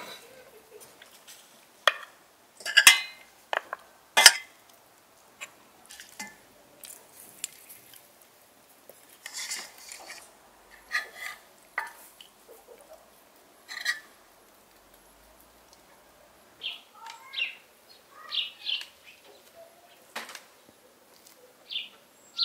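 A metal spoon clinking and scraping in a metal pot as fried goose is served out, with a few sharp knocks in the first seconds. In the last part, short clucks from chickens.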